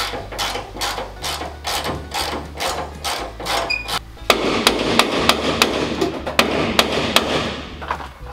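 Background music with a steady, hard-hitting beat, about three beats a second, over a changing bass line; a fuller, louder section comes in about halfway through.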